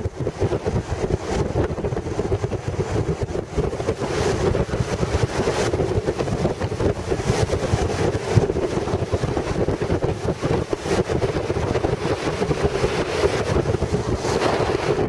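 Steady road and engine rumble of a moving car with a constant hum, mixed with wind buffeting the microphone.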